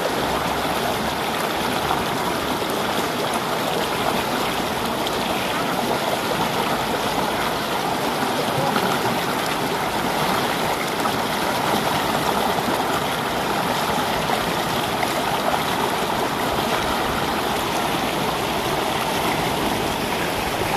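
Shallow rocky river rushing over and around boulders: a steady, unbroken wash of running water heard right beside the rapids.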